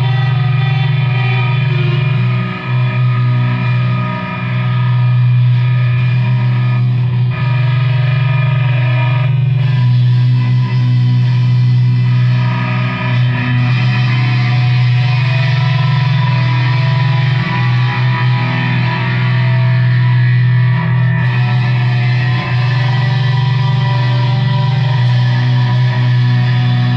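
Loud distorted electric guitar music, heavy on effects, with a low droning note held almost throughout that briefly drops out a few times.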